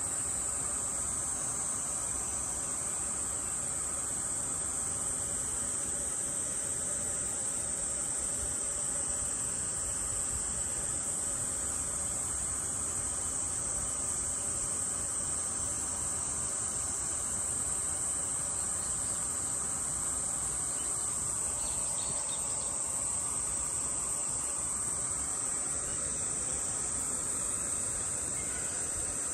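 Steady, high-pitched insect drone that runs unbroken and never changes in level.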